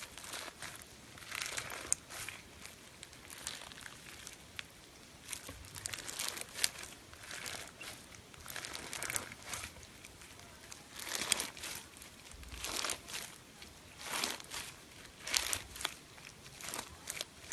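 Slime being squeezed and worked by hand, giving irregular bursts of crackling and crinkling.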